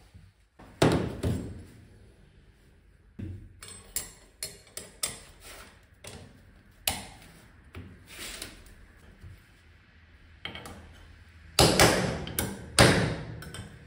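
Irregular knocks, clicks and clinks of metal scooter clutch parts and hand tools being handled and fitted, with a loud knock about a second in and a cluster of louder knocks near the end.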